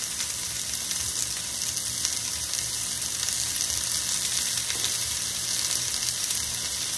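Nopal cactus paddles sizzling steadily in olive oil on a hot foil-lined comal, a continuous hiss with fine crackling.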